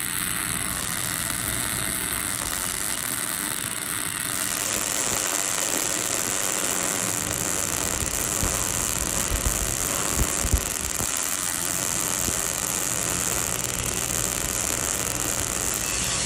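MIG welding arc running steadily on a vertical open-root pass, an even noise that brightens a few seconds in, with a few brief knocks near the middle.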